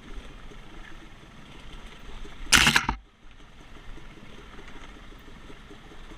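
Yamaha YZ250X two-stroke dirt bike engine running at low revs while picking its way over rocky singletrack, heard from a helmet-mounted camera. About halfway through, a loud rushing noise lasts about half a second.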